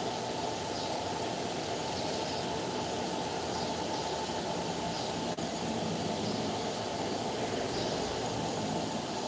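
Steady background noise, strongest in the low range, with a faint high chirp repeating about once a second.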